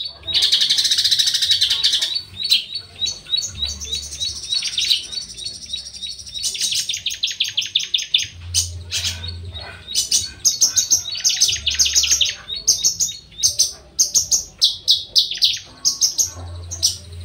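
Horsfield's bush lark (branjangan) singing without pause: a dense buzzy phrase at the start, then long runs of rapid, sharp repeated chirps and trills.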